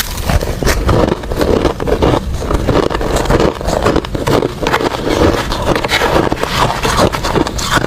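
Ice being bitten and chewed: a dense, continuous run of cracking crunches.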